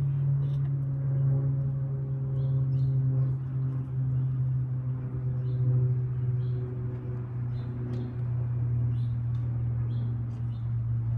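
Steady low hum with faint short high chirps scattered over it.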